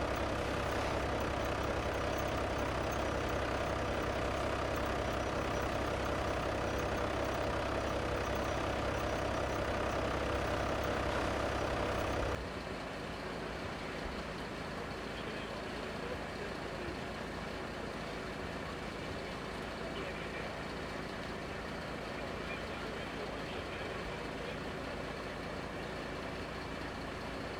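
A heavy vehicle's engine running steadily at idle. About twelve seconds in it cuts off abruptly to a quieter, rumbling background.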